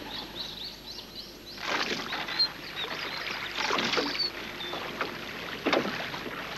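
Oars dipping and splashing in water as a rowboat is rowed, in irregular strokes starting about two seconds in, with small birds chirping.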